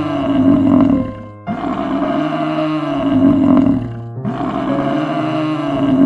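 An animal roar that repeats almost identically about every three seconds, each one starting sharply, over steady background music.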